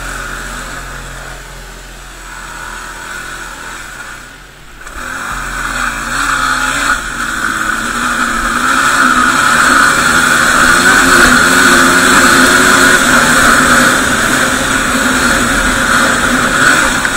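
Yamaha WR250R's single-cylinder four-stroke engine running under way. It gets louder from about five seconds in as the bike picks up speed, then holds steady at speed.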